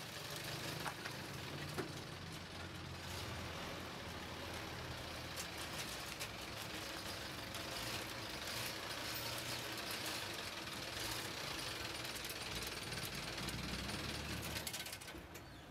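Small flatbed pickup truck's engine idling steadily, with a fast ticking mechanical rattle over a low hum.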